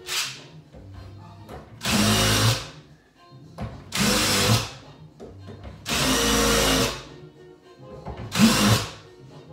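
Cordless drill run in four short bursts, each under a second and one about a second long, driving screws into a wooden closet cabinet.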